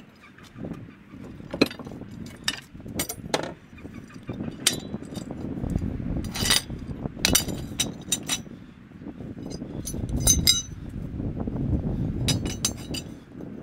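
Rusty iron bars clinking and clanking against one another as one bar is pulled from a pile of scrap and handled: irregular sharp metallic knocks, some ringing briefly, over a low rumble.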